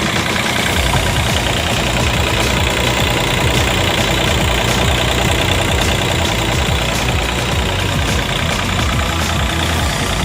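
Yanmar ViO27-5B mini excavator's diesel engine running steadily.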